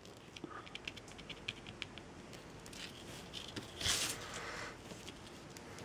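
Small quick clicks and taps of hands working with craft tools and jute on a work table, with a brief louder rustle or scrape about four seconds in.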